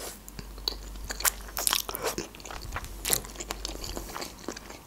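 Close-miked chewing of a mouthful of saucy stir-fried noodles: irregular wet clicks and crackles from the mouth as she eats.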